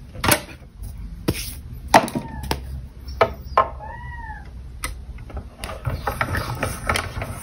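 Clear acrylic cutting plates clacking and knocking as they are stacked and slid into a manual die-cutting machine. A cat meows once about four seconds in. Near the end the machine's crank handle is turned, with rapid clicking and a low rumble as the plates feed through the rollers.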